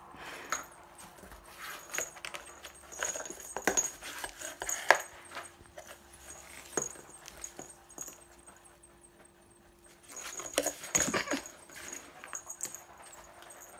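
A cat scrabbling and pawing at a toy inside a cardboard box: irregular scratches, rustles and knocks of claws and paws on cardboard, in clusters with short quiet gaps.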